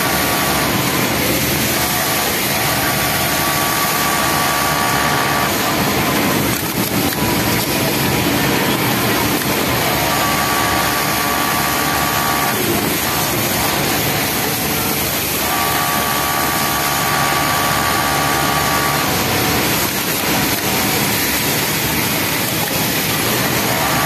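Yamato flatlock industrial sewing machine stitching a T-shirt hem, running in spells of a few seconds with short breaks as the fabric is fed, over steady background machine noise of the sewing floor.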